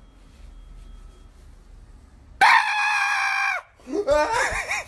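A loud, high-pitched cry held for about a second that cuts off abruptly, followed after a short gap by a wavering, warbling cry.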